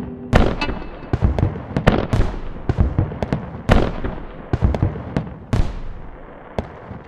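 Fireworks display: a rapid, irregular series of booming bursts with crackling between them, growing fainter toward the end.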